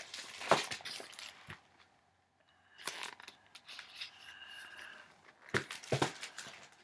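Paper rustling and crackling as a picture book is handled, opened and held up, with a few sharp flaps of the pages: one burst at the start, another about three seconds in, and a third near the end.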